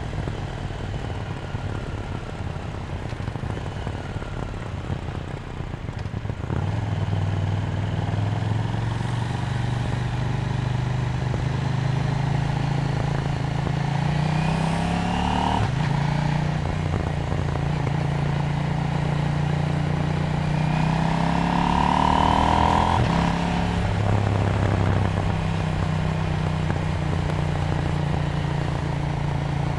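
KTM 790 Duke's parallel-twin engine at part throttle, then accelerating: the revs rise and drop sharply twice at upshifts, about halfway through and again about three-quarters of the way in, then settle to a steady cruise.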